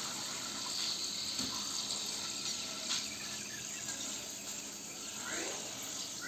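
Coated potato sticks deep-frying in hot oil in a kadhai: a steady sizzle of the oil bubbling around them as they are scooped out with a wire skimmer.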